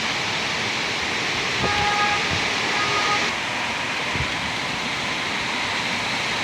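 Steady heavy rain falling, an even hiss, with a faint brief tone about two seconds in.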